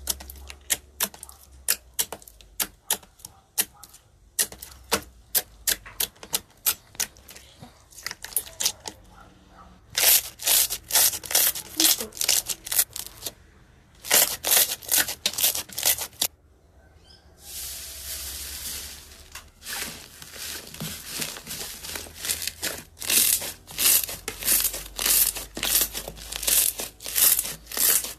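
Slime being squeezed and worked by hand, making quick trains of sticky clicks and pops, in runs with short pauses. About two-thirds of the way through there is a crackling hiss lasting about two seconds.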